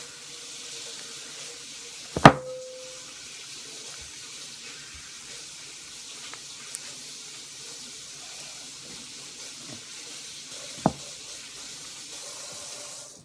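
Tap water running steadily into a sink while hands are washed, then cut off suddenly near the end. A sharp knock about two seconds in is the loudest sound, with a second, smaller knock later on.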